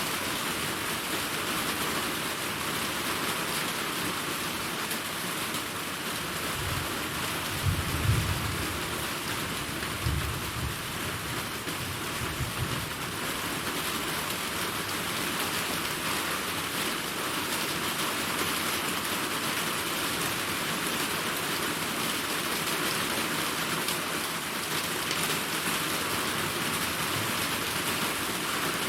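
Steady heavy rain falling, with a low roll of thunder that starts about six seconds in and peaks twice before fading away by about thirteen seconds in.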